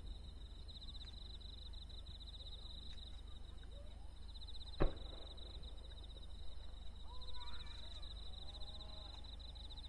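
Night-time insects trilling steadily in a high, fast-pulsing chorus, with faint distant voices and a single sharp pop about five seconds in.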